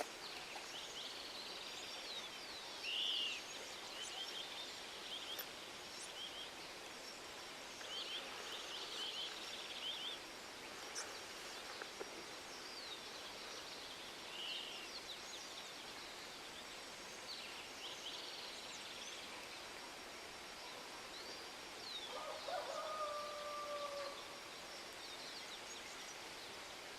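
Rural outdoor ambience: many birds chirping in short high calls throughout, over a faint steady hiss. About 22 seconds in, a lower, drawn-out call sounds for a couple of seconds.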